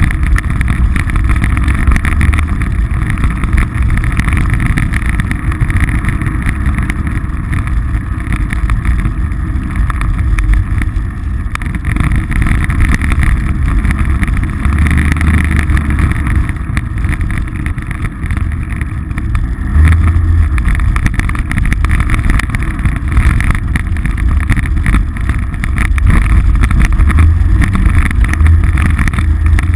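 Polaris RZR side-by-side's engine running as it drives along, its low drone rising and easing with the throttle, louder in the last few seconds.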